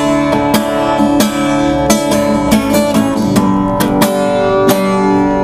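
Acoustic guitar strummed in a steady rhythm, with full chords ringing: the instrumental opening of a song, before any singing.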